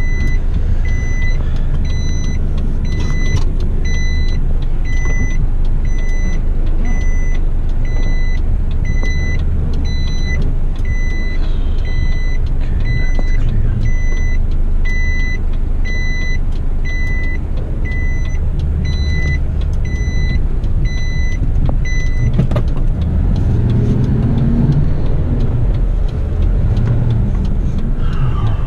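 Heavy rigid truck's diesel engine running, with a high electronic warning beep repeating about one and a half times a second. The beeps stop about 22 seconds in, leaving only the engine rumble.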